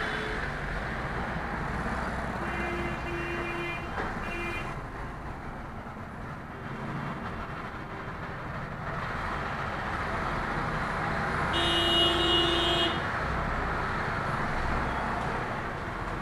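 Congested street traffic heard from inside a small car: a steady low engine and traffic rumble, with two short vehicle horn toots about three and four seconds in, and a longer, louder horn blast about twelve seconds in.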